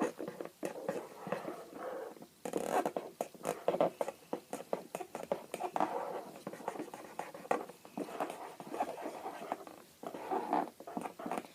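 Pens scribbling on paper in a steady stream of quick scratchy strokes.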